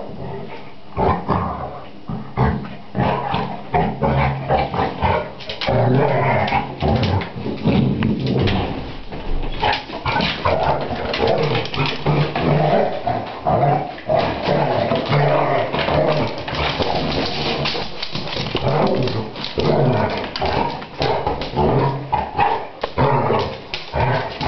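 Basset hounds play-fighting, growling, whining and barking almost without a break.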